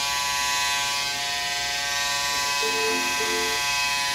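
Electric hair clippers running with a steady buzzing hum, being drawn over a scalp to shave it down close to the skin.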